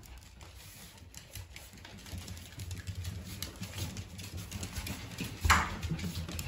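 Claws of several small Maltese and Shih Tzu dogs pattering and clicking fast on a wooden floor as they run, growing louder toward the end, with one louder short sound about five and a half seconds in.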